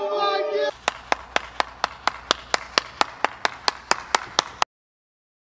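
A rap song cuts off under a second in. One person then claps in a steady rhythm, about four claps a second, and the clapping stops suddenly near the end.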